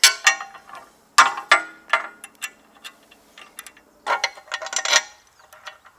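Metal tool clinking and scraping on the galvanized bolts and lock nuts of a Mantus anchor as they are tightened, in irregular bunches of sharp clicks with a brief metallic ring after the strikes.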